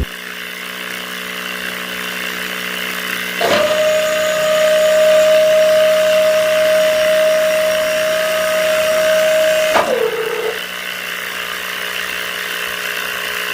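Small electric motor of a homemade model drilling rig running with a steady whir. About three and a half seconds in, a higher steady whine switches on with a click, then stops about ten seconds in, dropping briefly in pitch.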